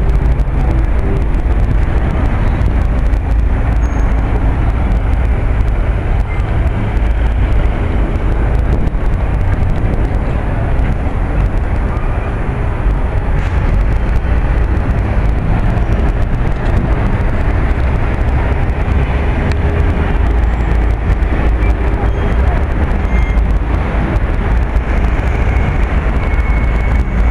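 Steady low rumble of city street traffic, with cars passing, heavy in the bass and unbroken throughout.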